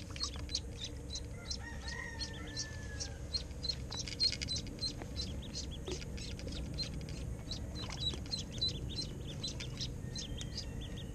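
A live duckling on a fishing line peeping over and over, several short high peeps a second, as it is jigged on the water as bait for snakehead. A longer call sounds once about two seconds in.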